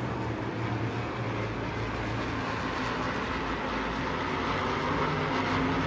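Supermodified race car engines droning as the field circles the track, fading a little and then growing louder near the end as the cars come around again.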